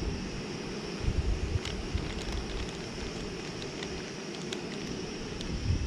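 Camp stove burner hissing steadily while food warms on it, with a few faint ticks. Wind buffets the microphone in low gusts about a second in and again near the end.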